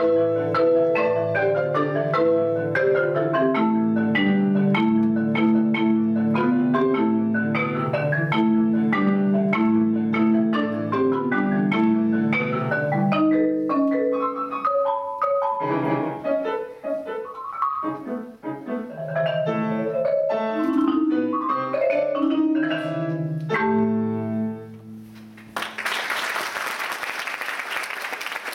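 Concert marimba played with mallets alongside piano, in fast runs of struck notes with a thinner passage in the middle, building to a final chord about 24 seconds in. Audience applause breaks out about a second and a half later.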